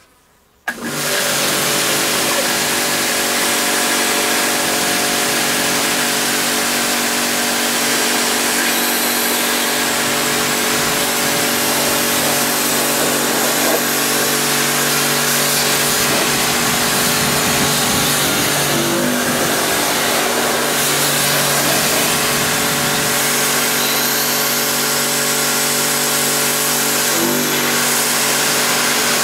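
Ruris PRO Power Jet 1900 pressure washer's 2500 W induction motor and pump starting suddenly under a second in and running steadily with an even hum, with the hiss of water spraying from the adjustable metal lance, the machine set to minimum pressure.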